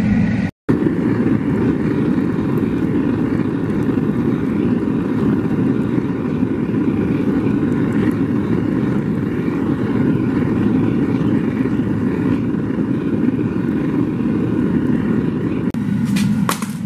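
Gas burner of a refractory-brick melting furnace running with a steady roar while aluminum melts in the crucible. The sound cuts out for an instant about half a second in, and a few sharp clicks come near the end.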